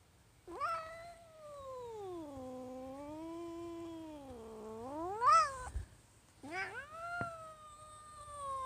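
House cat giving two long, drawn-out yowls. The first lasts about five seconds, sagging low in the middle and rising sharply at its end; the second, after a short pause, slides down at its close. It is the sound of an angry, agitated cat.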